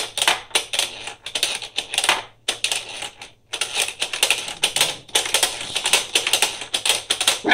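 Rapid, irregular plastic clicking and clattering from a Screwball Scramble marble-maze toy being played, as its buttons and levers are pressed and the steel ball moves through the course. There are short pauses about two and a half and three and a half seconds in.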